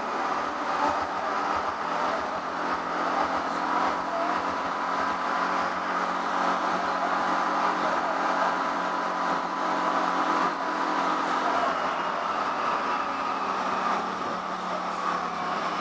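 Turin 7000-series bidirectional tram running along its track, heard from inside its rear cab: a steady rolling noise of wheels on rail with a steady low hum and a thin higher whine.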